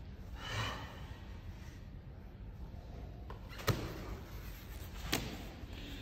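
Two sharp knocks about a second and a half apart, after a short breathy exhale about half a second in, while a heavy slam ball is gripped and hoisted onto the shoulder.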